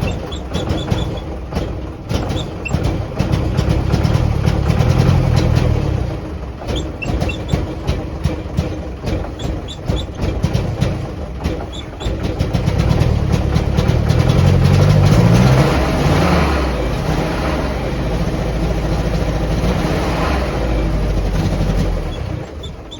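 1949 Willys Jeep CJ-3A's four-cylinder flathead engine running unevenly, revved up twice. It is the rough running that persists after a new coil, points, rotor and distributor cap, which the owner suspects comes from poor points or a stuck valve.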